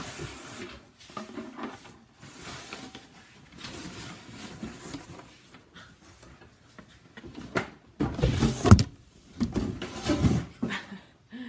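Rustling and scraping of a large cardboard shipping box being opened and handled, with louder bursts of handling noise about eight and ten seconds in.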